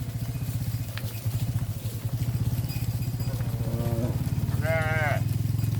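Small motorcycle engine running steadily. About four seconds in it is joined by two short pitched calls, the second higher and wavering.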